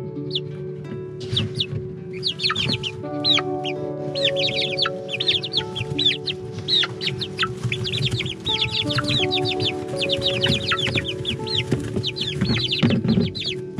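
A group of six-week-old chickens peeping constantly, with many short calls falling in pitch and overlapping one another, over background music.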